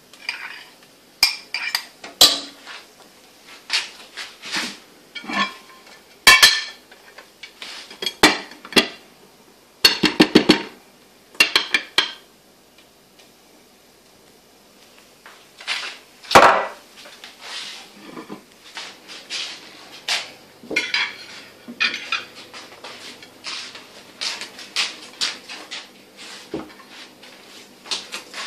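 Kitchenware clatter: sharp clinks and knocks of utensils and a cup against a stainless steel saucepan and ceramic plates, some ringing briefly, as rice is packed into a cup and turned out onto plates. It pauses for a few seconds around the middle, then goes on as lighter clicking and handling.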